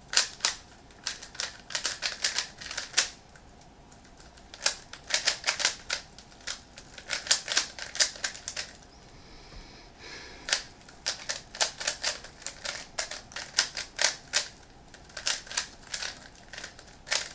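Rubik's cube being speed-solved by hand: rapid clattering clicks of the plastic layers turning, in quick runs broken by two short pauses, about three and nine seconds in.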